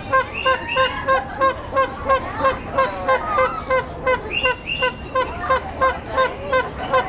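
Birds calling: a honking call repeats steadily about three times a second, with shriller squawks and chirps over it.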